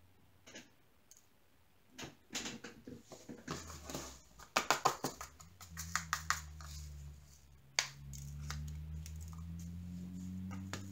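Small plastic diamond-painting drills rattling and clicking against a plastic drill tray and a small plastic drill container as they are shaken and handled, in quick runs of clicks. A low steady hum comes in about a third of the way through and grows louder near the end.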